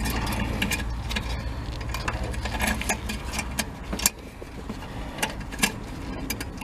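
Small plastic and metal clicks and rattles as an H1 halogen bulb is worked into a car's headlight housing and its metal retaining clip is fitted by hand. A low steady rumble runs underneath in the first half and fades out about three and a half seconds in.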